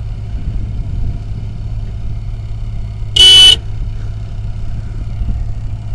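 A vehicle engine idling steadily, with one short, loud car-horn blast a little past the middle.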